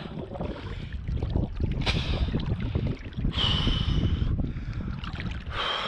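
River current sloshing and churning around a camera held at the water surface, with a few loud breaths drawn through a snorkel, the longer ones carrying a thin whistle.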